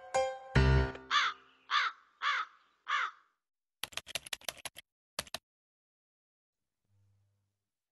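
A crow cawing four times in quick succession, each caw short and about half a second apart, just after the last notes of a music jingle. Then a quick run of light clicks, a typing sound effect.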